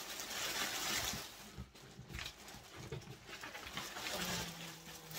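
Plastic packaging bags crinkling and rustling as they are handled and pulled about in a cardboard box, loudest in the first second and a half. A low steady hum sets in near the end.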